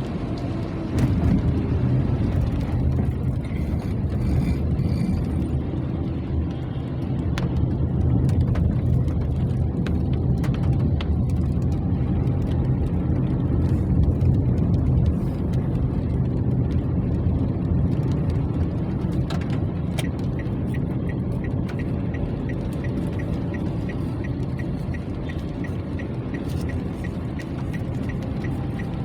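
Rain, heard as a steady, muffled low rumble with scattered clicks of drops. Near the end it includes a faint run of even ticks.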